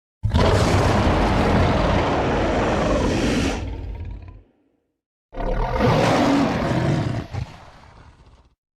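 Two creature roar sound effects, each lasting three to four seconds, separated by a second of dead silence; the second fades out gradually.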